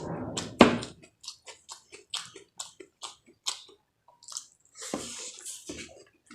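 A person chewing and eating food close to the microphone: wet smacking mouth sounds at about three a second, with a louder click about half a second in.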